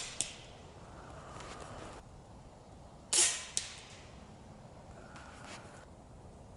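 Snowpeak M60 PCP air rifle firing slugs: the tail of one shot with its slug's sharp hit on the target right at the start, then a second shot about three seconds in, its slug hitting the target half a second later. Fainter handling noises come between the shots.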